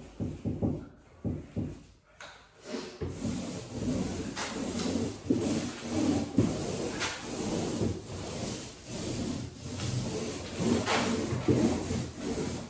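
Mini paint roller with a glossing sleeve rolled back and forth over a panelled door, a rhythmic wet rubbing hiss as the paint goes on. The roller turns smoothly on its repaired arm.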